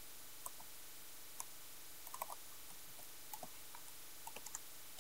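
Faint typing on a laptop keyboard: single keystrokes and short runs of taps, separated by pauses.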